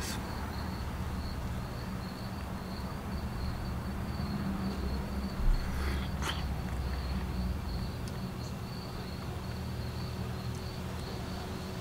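A cricket trilling steadily in a high, even tone over a low background rumble, with a soft thump about five seconds in and a single sharp click just after.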